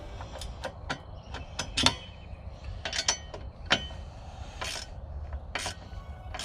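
Hand ratchet wrench clicking in short irregular strokes, with a few sharp metallic clinks, as the nuts on the rack's carriage bolts are run down tight.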